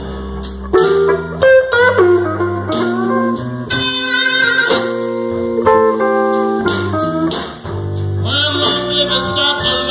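Live electric blues band playing: electric guitar over electric bass and drum kit in a steady blues groove, with held, bending lead notes.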